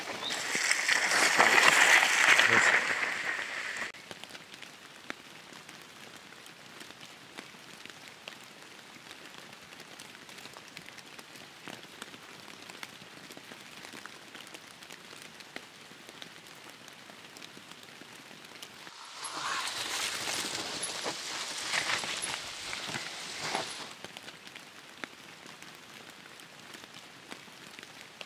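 Mountain bikes passing on a wet, muddy forest trail: tyres hissing and crackling through mud and fallen leaves, once in the first few seconds and again for about five seconds past the middle, with a faint quiet hush between.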